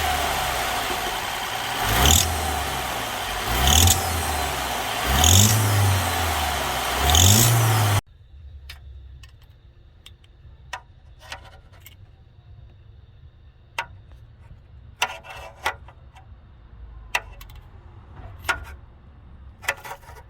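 BMW F20 engine blipped four times, each rev rising and falling, with a rattle from the exhaust: a loose exhaust manifold with a snapped bolt, leaking exhaust gas. The engine sound cuts off abruptly about eight seconds in, leaving only faint, scattered short sharp sounds.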